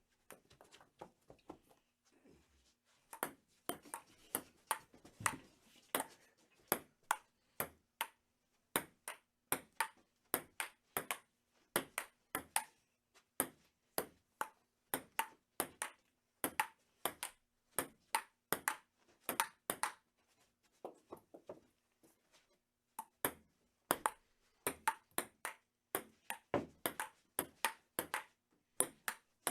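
Table tennis rally: the ball clicking sharply off paddles and table, about two to three hits a second in an irregular rhythm, with softer stretches near the start and about two-thirds through.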